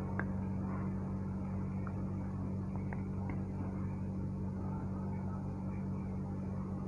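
Electric fan motor humming steadily, with a few faint clicks of a fork against a glass bowl.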